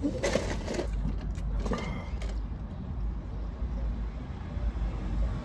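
Steady low rumble, with brief soft mouth sounds of eating near the start and again about two seconds in.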